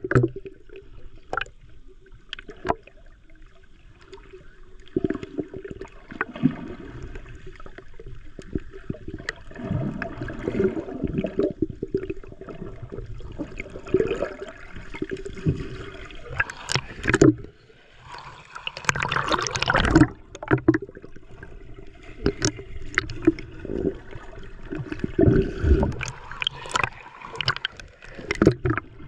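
Water recorded with the microphone underwater: a muffled gurgling and sloshing with many irregular knocks and short bursts, and a louder surge of splashing about two-thirds of the way through.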